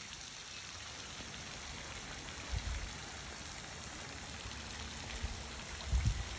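Steady spatter of water drops falling onto a pond's surface. A few low thumps come through about two and a half seconds in and again near the end.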